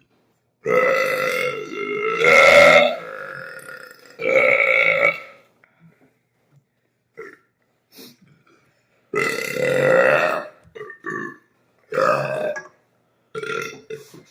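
Deliberate belching after gulping carbonated soda: about five long burps in a row. The first is nearly three seconds long and rises in pitch near its end.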